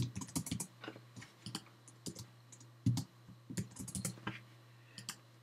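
Typing on a computer keyboard: irregular runs of keystroke clicks with a few heavier key presses. A faint steady low hum lies under it.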